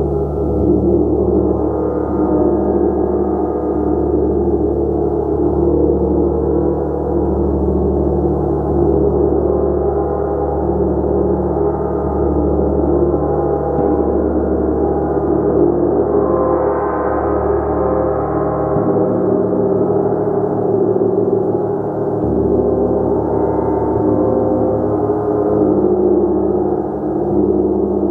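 Gong played continuously, its many overtones sustaining in a dense, steady wash of sound with no breaks. About two-thirds of the way through the upper tones briefly swell brighter.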